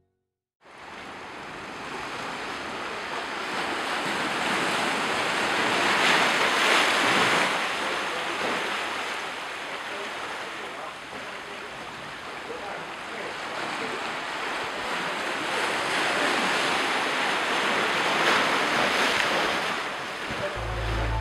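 Sea surf: waves washing in and breaking, the rush swelling twice, about twelve seconds apart.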